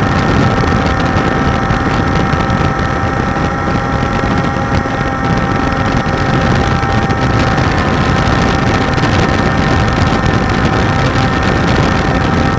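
Walkera Scout X4 quadcopter's electric motors and propellers, heard through the onboard camera's microphone: a steady, even whine of several tones over a low rumble of air and wind buffeting the microphone.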